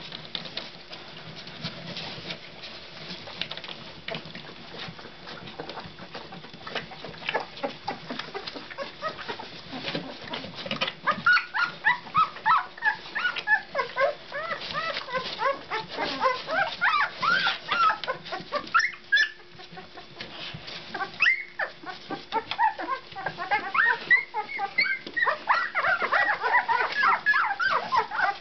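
Two-week-old Labrador puppies squeaking and whimpering: many short, high, up-and-down squeals that start about a third of the way in and grow frequent and loud, with a short lull after the middle. Before that, only soft scuffling clicks.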